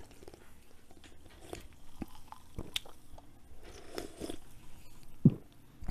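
A person drinking canned Coke close to a microphone: gulping and swallowing sounds from the throat, with small wet mouth clicks and one heavier gulp near the end.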